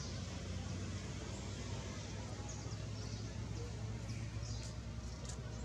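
Outdoor ambience: a steady low rumble, with short, high chirps scattered through the second half.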